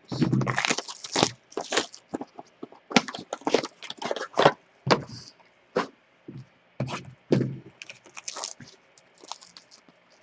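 A sealed trading-card box and its wrapping being opened and handled: irregular crinkling, tearing and scraping of plastic and cardboard, in short uneven bursts.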